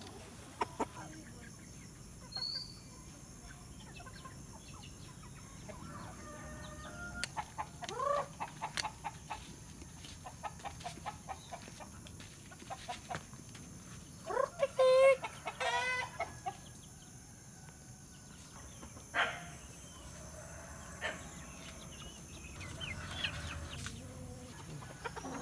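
Chickens clucking and calling on and off, with a louder run of quick calls about halfway through.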